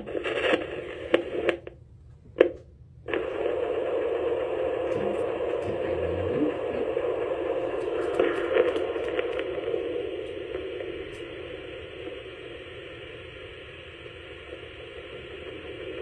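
Ultrasonic Doppler flow detector's loudspeaker giving the hissing, whooshing sound of blood flow picked up by a probe on an African grey parrot's leg during a blood pressure reading. It comes in short bursts with brief cut-outs in the first few seconds, then settles into a continuous hiss that grows somewhat fainter in the second half.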